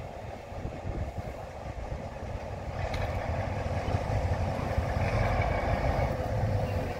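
Small diesel shunting locomotive approaching slowly along the track, its engine running steadily and growing louder about halfway through as it draws near.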